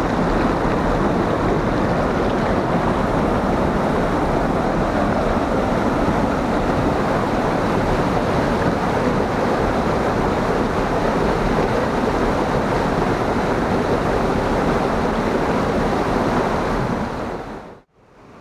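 Waterfall pouring, a steady loud rush of falling water that fades out near the end.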